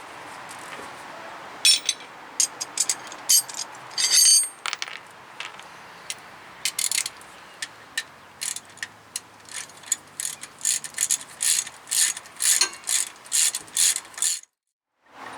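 Hand ratchet wrench clicking in short runs of strokes, the clicks coming faster and more regularly in the second half, then cutting off suddenly near the end.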